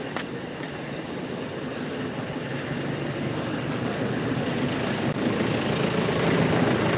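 A steady mechanical hum, like an engine or machine running, that grows gradually louder, with a single small click about five seconds in.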